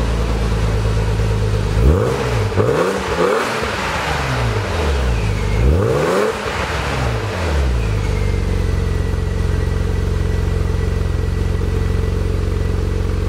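BMW Z3 running through an Eisenmann sports exhaust, heard at its twin tailpipes. The engine idles, is blipped a few times in quick succession about two seconds in, is revved once more around six seconds, and then settles back to a steady idle.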